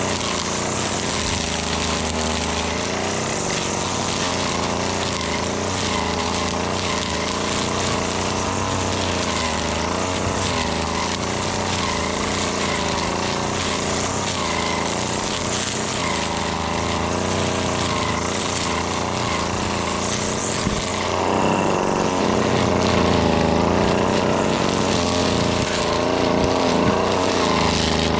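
Husqvarna 525L gas string trimmer's small two-stroke engine running under load while cutting, its speed wavering up and down. About three-quarters of the way through it revs higher and louder.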